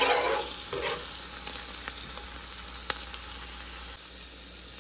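Diced bell peppers, red onion and minced garlic sizzling in hot grapeseed oil in a nonstick pan, stirred and scraped for about the first second, then a steady sizzle with a couple of light clicks.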